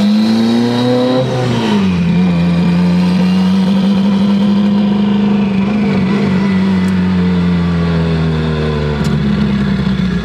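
Inside the cabin of a built, big-turbo Mitsubishi Evo 8 on the move, its 4G63 turbocharged four-cylinder engine running. The engine note climbs for about the first second and a half, drops sharply, then holds a steady cruising pitch before easing down near the end.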